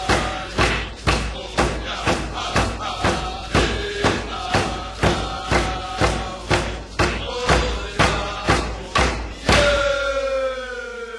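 Group chanting over a steady drumbeat of about two beats a second. Near the end the drumming stops and the voices hold one long call that slides down in pitch and fades.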